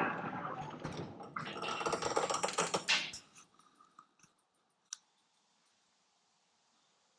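A dense run of rapid clicking and clattering for about three seconds, then two faint ticks and near quiet.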